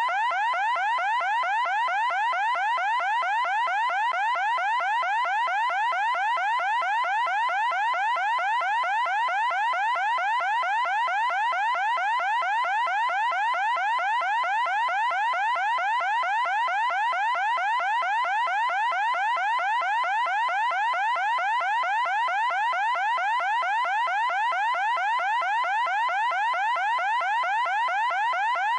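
Electronic alarm: a pitched tone sweeping quickly upward, over and over, several times a second and without a pause, at a steady level.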